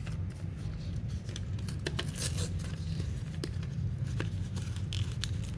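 Small packaging being opened by hand: faint scattered clicks and light rustling of a small box or blister pack, over a steady low hum.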